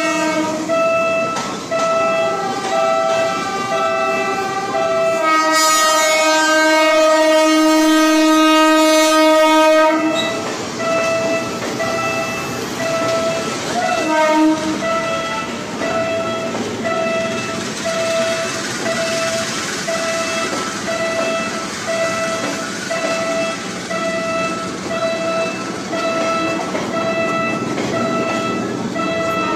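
A Philippine National Railways 203-series commuter train passes close by, its wheels clattering on the track. Its horn sounds one long blast from about 5 to 10 seconds in and a short toot near 14 seconds. A level-crossing warning bell dings about once a second throughout.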